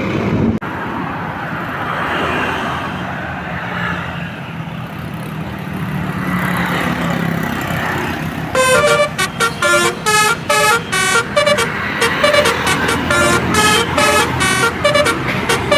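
Bus engine and road traffic noise as a bus goes by. About halfway through, a telolet basuri multi-tone musical air horn starts playing a fast tune of short, stepped-pitch blasts that run on past the end.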